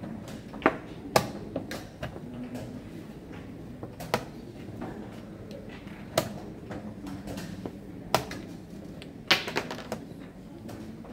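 Plastic chess pieces being set down on a vinyl board and the buttons of a digital chess clock being pressed during a fast blitz game. It is an irregular series of sharp clicks and knocks, about half a dozen loud ones.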